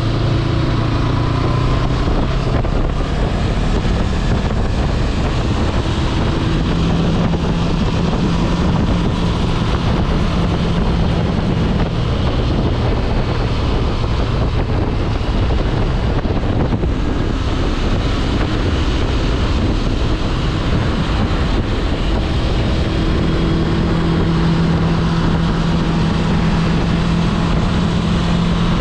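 2022 Honda CB500X's parallel-twin engine running at a steady cruise, under heavy wind rush on the microphone. The engine note stays even, with no sharp changes in speed.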